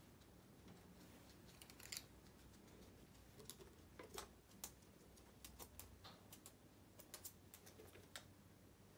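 Faint, irregular crisp clicks and snips: a guinea pig biting and chewing strands of hay.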